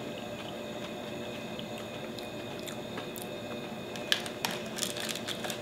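Steady low room hum, then about four seconds in a quick run of sharp crackles and clicks as a sugar-coated marshmallow Peep is pried out of its paperboard tray.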